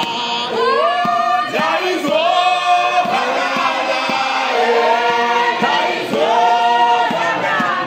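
Men's church choir singing a hymn in Shona a cappella, many voices in harmony, each phrase sliding up into a long held note.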